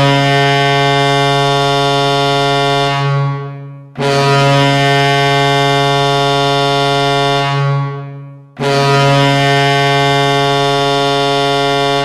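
Los Angeles Kings goal horn blowing three long blasts, each a steady low tone of about four seconds. The first two tail off just before the next one starts.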